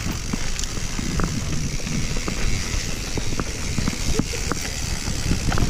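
Mountain bike rattling and clattering as it descends a rough dirt trail: many short sharp knocks over a constant low rumble.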